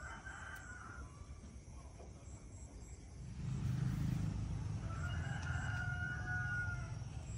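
A rooster crowing: one long crow about five seconds in, with a shorter call at the very start. A low rumble comes in about three seconds in and stays under it.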